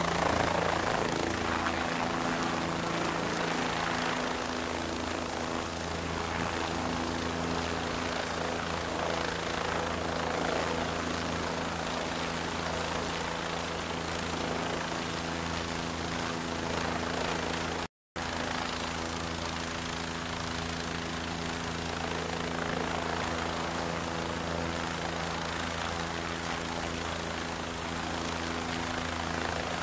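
Northrop Grumman MQ-8C Fire Scout unmanned helicopter, with its turboshaft engine and rotor, running steadily through lift-off and hover. It makes a steady, even hum of rotor tones over a rushing noise. The sound drops out for a split second about 18 seconds in.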